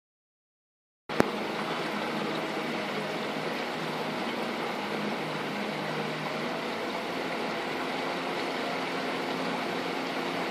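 Boat motor running steadily under way, mixed with water rushing past the hull. The sound cuts in with a click about a second in.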